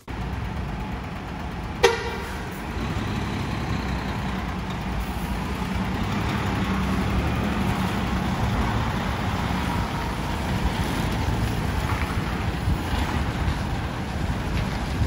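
Large diesel truck with a 13-litre engine running at low speed, a steady low rumble, with one short horn toot about two seconds in.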